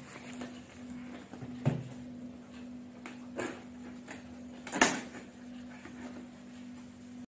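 Scissors cutting into the tape and cardboard of a ring-light box, with rustling and a few sharp snips and cardboard knocks, the loudest about five seconds in. A steady low hum runs underneath.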